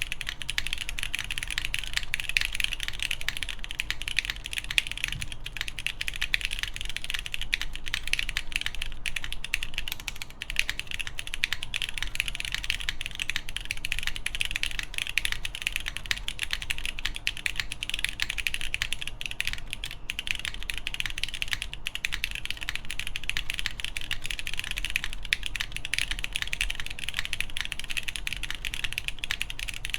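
Continuous fast typing on a mechanical keyboard with lubed Cherry MX2A Brown tactile switches in a polycarbonate plate, GMK keycaps: a dense, even stream of muted keystroke clicks.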